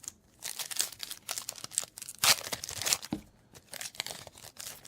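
Foil trading-card booster pack wrapper crinkling and being torn open, a run of irregular crackles and rips that is loudest a little past the middle.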